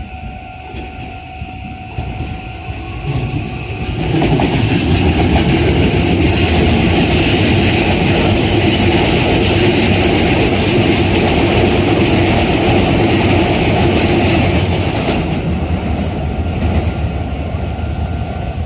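Electric commuter train passing a level crossing at close range. At first the crossing's warning bell rings over the train's rising approach. About four seconds in the train's wheels and running gear come through loudly for some ten seconds, then fade as it moves away.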